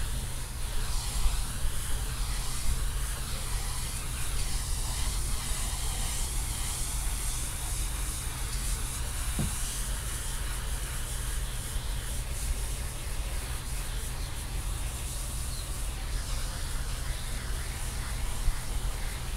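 Pressure washer spraying a rug: a steady hiss of the water jet on the pile over the constant low hum of the washer's motor.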